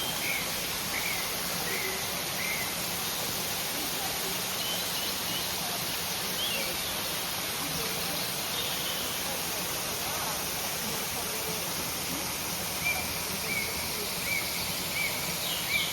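Waterfall rushing steadily, with small birds chirping faintly over it and a run of short repeated calls near the end.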